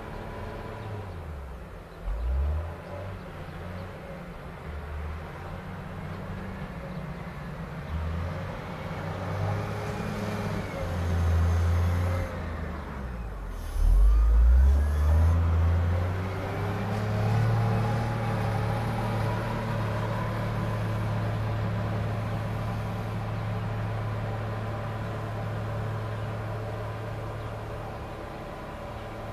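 Volvo L60E wheel loader's diesel engine working on a maize silage clamp. It revs up and down as the loader comes down off the heap, is loudest as it passes close about halfway through, then settles into a steady pull under load as it climbs back up the clamp.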